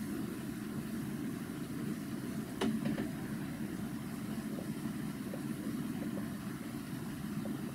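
Steady low background rumble like an idling engine or machinery, with a sharp knock about two and a half seconds in and a few faint ticks from a marker writing on a whiteboard.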